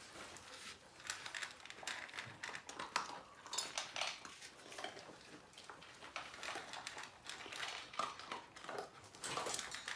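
Dogs eating dry kibble from stainless steel bowls: irregular clinks and clicks of kibble and muzzles against the metal.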